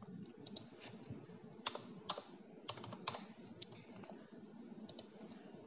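Computer keyboard being typed on: about ten faint, irregularly spaced keystrokes.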